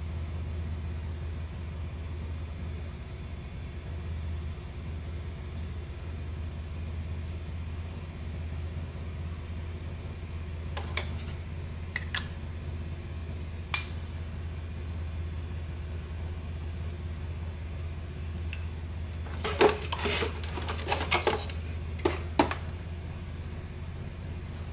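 Small clicks and knocks of a glass perfume bottle and its metal cap being handled: a few single clicks around the middle, then a denser, louder run of clicks and knocks near the end. A steady low hum lies under it all.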